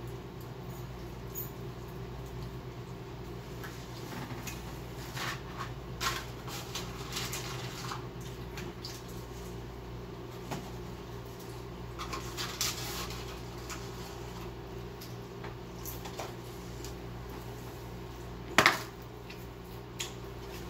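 Mukbang eating sounds: chewing and the handling of fast-food wrappers and containers, scattered clicks and crinkles over a steady low hum, with one louder sharp noise near the end.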